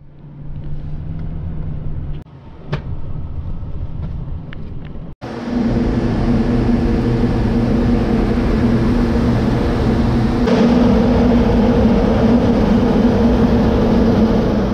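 For about five seconds, a low steady engine hum inside a pickup truck's cab, with a few faint clicks. After a sudden cut, a loud steady drone of grain-handling machinery running at the grain bins, with a steady hum that grows stronger about ten seconds in.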